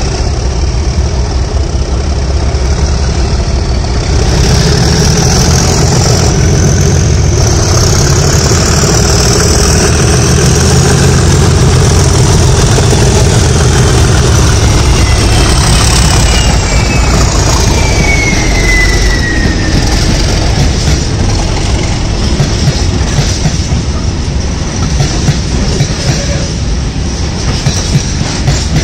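Two Class 37 diesel locomotives with English Electric V12 engines run past close by, with a heavy engine rumble and a high whine that rises, then falls in pitch as they go by. After them the loaded wagons of the engineering train rattle over the rail joints in a steady clickety-clack.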